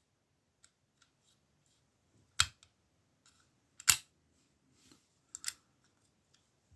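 Old Burg lever padlock handled and locked with its key: a few sharp metal clicks, about two and a half, four and five and a half seconds in, the one near four seconds the loudest, with faint ticks between.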